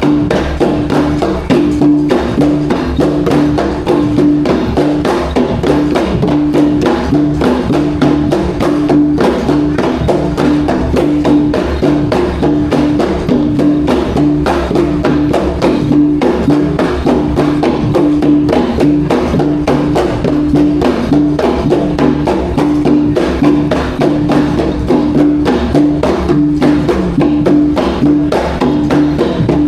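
Traditional Iban gendang pampat music: drums struck in a fast, dense, steady rhythm over a pitched note that pulses evenly throughout.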